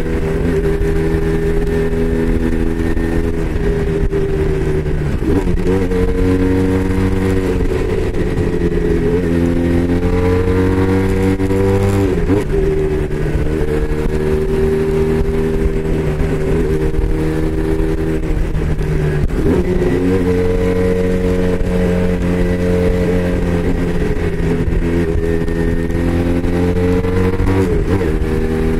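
Braaap Moto4 motorcycle engine running under way. The engine note climbs and then drops back sharply several times, about every five to seven seconds, as the bike is ridden through gear changes or throttle changes.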